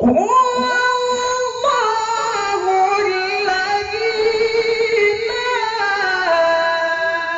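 Quran recitation (tilawah) in a high, melismatic voice: long held notes with wavering ornaments, starting abruptly, the pitch stepping down to a lower sustained note near the end.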